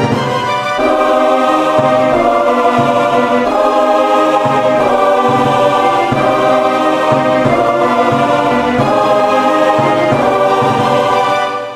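Choral music: voices holding sustained chords that change every half second or so, swelling about a second in and starting to fade out at the very end.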